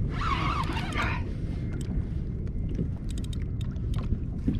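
Wind rumbling on the microphone and water moving around a kayak's hull, with a brief hiss in the first second and a few faint light clicks.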